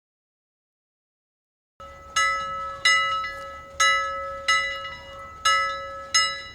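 After about two seconds of silence, a bell-like chime is struck six times at a slow, uneven pace, each strike ringing out and fading over a steady held tone.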